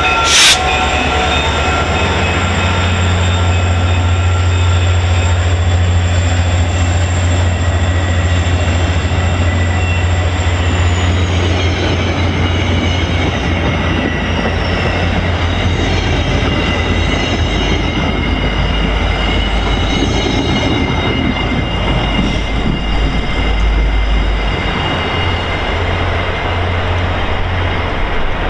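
Diesel-electric train at close range: a steady low locomotive engine drone with wheels running on the rails. A high whine over it drops in pitch about a third of the way in. A sharp click comes just after the start.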